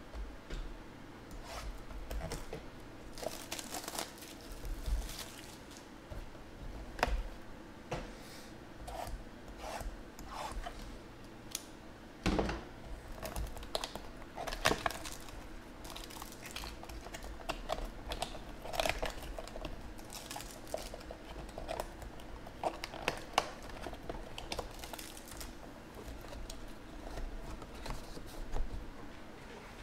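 Trading-card box and packs being opened by hand: irregular tearing and crinkling of packaging, with scattered small clicks and taps as the cards are handled.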